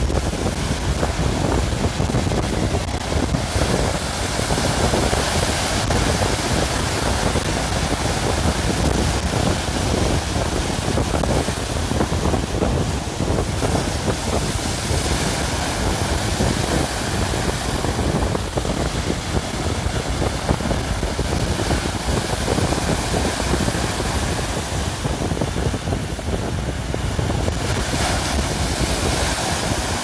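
Rough Baltic Sea surf breaking and washing over the concrete tetrapod blocks of a breakwater in a steady, dense rush. Strong wind buffets the microphone, adding a heavy low rumble.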